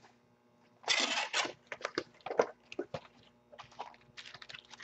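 Plastic shrink-wrap on a sealed trading-card box crinkling and tearing as the box is handled and unwrapped. A burst of rustling comes about a second in, then scattered crackles.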